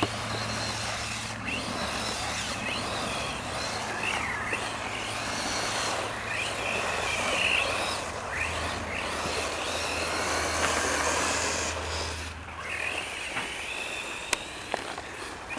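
Radio-controlled car's motor whining up and down in pitch again and again as it speeds up and slows, over a steady hiss. It drops away about twelve seconds in, leaving a few sharp ticks near the end.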